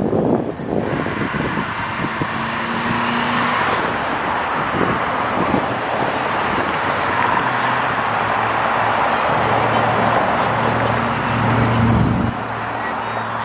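A New Flyer Xcelsior city bus running, with steady engine hum and road noise; the engine hum swells near the end, then drops off abruptly.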